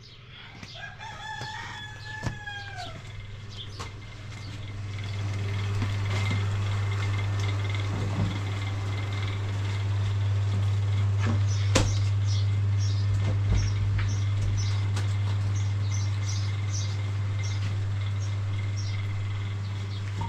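A rooster crows once, about a second in, over a steady low hum that swells over the next few seconds and then holds as the loudest sound. Short high bird chirps repeat through the rest, with one sharp knock about halfway.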